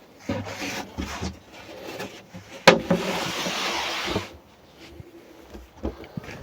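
Plywood panels being handled and slid into place: scattered thumps and clunks, a sharp wooden knock almost three seconds in, then about a second and a half of scraping as a board slides.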